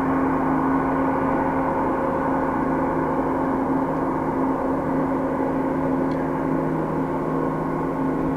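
Boeing 777-200's twin turbofan engines running at low taxi power: a steady whine of several held tones over a rushing noise, without rising or falling.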